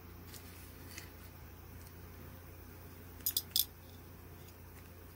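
Small glass star beads clinking inside a plastic zip bag as it is handled: three quick, light clinks a little past halfway, with faint ticks of handling around them.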